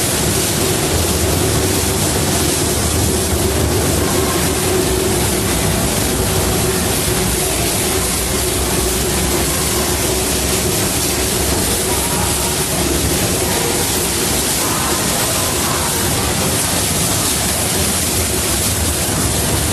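The Ward Kimball steam locomotive running, heard from inside its cab: a loud, steady roar that does not change.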